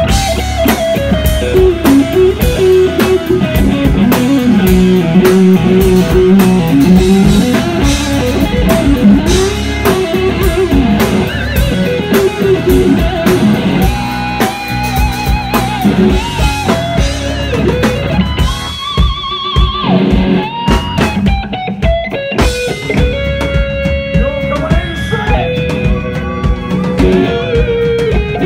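Live blues-rock band playing an instrumental passage: an electric guitar lead with string bends and vibrato over drum kit and bass guitar.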